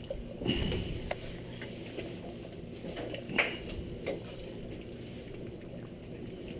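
Metal spoon stirring rice in water in a stainless steel pot, with a low swishing and a few light clinks of the spoon against the pot, the loudest a little past the middle.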